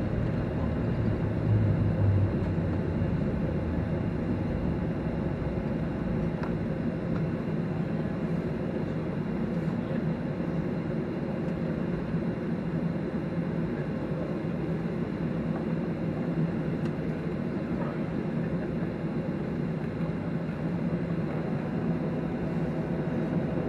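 Cabin noise of a Boeing 737-800 rolling out on the runway after landing: a steady rush of engine and airflow noise, a little louder with a low rumble in the first couple of seconds, then even as the jet slows.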